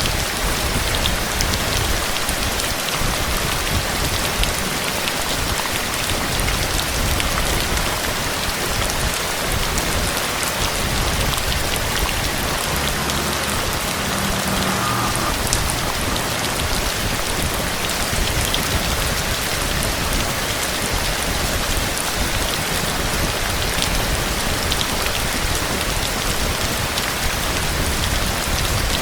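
Steady heavy rain falling on a surface, a dense even hiss with scattered individual drops.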